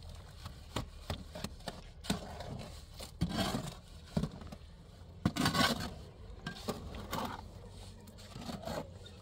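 A small shovel scraping and scooping wet mortar in a shallow mortar tray: a series of irregular scrapes, the longest a little past halfway.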